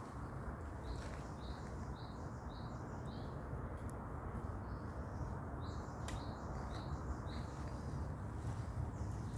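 A bird chirping: a run of short, evenly spaced notes, about two a second, then a few more a couple of seconds later, over a steady low rush of background noise.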